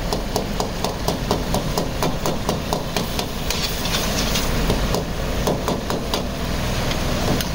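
Long metal ladle knocking and scraping against a black karahi wok as the chicken karahi is stirred, about four clinks a second at first, then more irregular, stopping about six seconds in. A steady low hum runs underneath.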